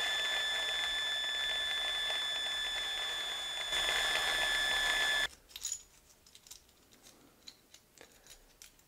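Small electric drill running at a steady high whine as it bores into the diecast truck's base, growing a little louder near four seconds and cutting off abruptly about five seconds in. Faint clicks of handling the metal casting follow.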